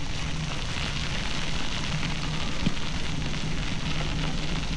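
Bicycle tyres crunching and crackling over a loose gravel trail while riding, over a steady low rumble.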